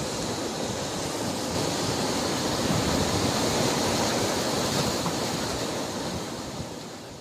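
Steady rush of ocean surf, swelling slightly in the middle and fading out towards the end.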